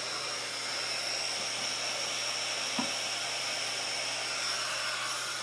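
Handheld craft heat tool running steadily: the even rush of its fan with a thin high whine, blowing hot air to dry chalk paste. A light tap about three seconds in.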